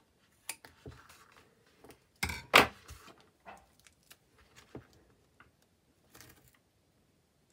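Clear plastic panel with card strips being handled, turned and pressed on a table, giving scattered light clicks and crinkles, with a louder crinkle about two and a half seconds in.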